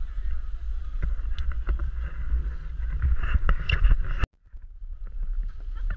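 Low rumble of wind buffeting a GoPro action camera's microphone, with scattered sharp clicks. The sound cuts out for about half a second about four seconds in, then the rumble resumes.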